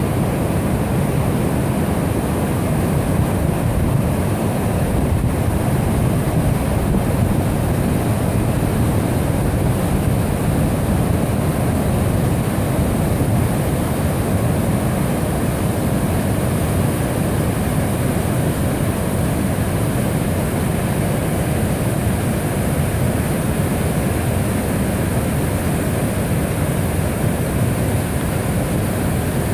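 Rapids of the Niagara River just above the American Falls: fast, shallow water rushing over rocks in a steady, unbroken low rush.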